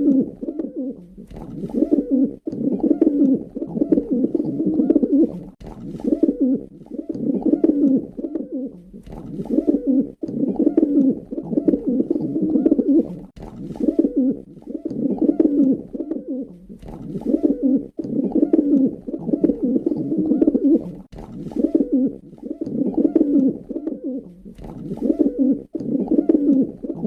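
Pigeon cooing: low, throaty coo phrases repeated over and over, a new phrase every second or two.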